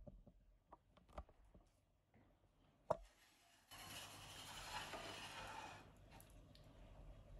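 A quiet room with a few faint taps and one sharper click about three seconds in, then about two seconds of close rustling as the phone brushes against a dog's curly fur.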